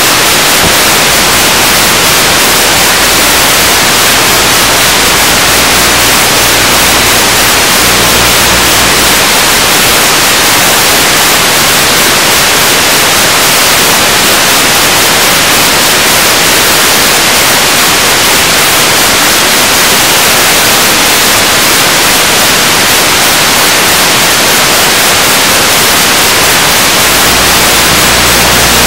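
Loud, steady static hiss, the noise of an analog video link's audio channel carrying no sound.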